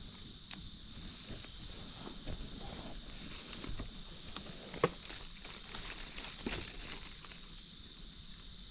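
Footsteps crackling through dry leaves and twigs on the forest floor, with one sharp snap about five seconds in, over a steady high insect drone.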